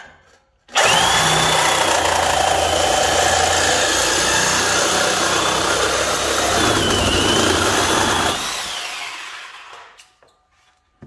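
DeWalt reciprocating saw cutting through a car's exhaust pipe. It starts suddenly about a second in, cuts steadily with a high whine for about seven seconds, then stops, and the motor winds down.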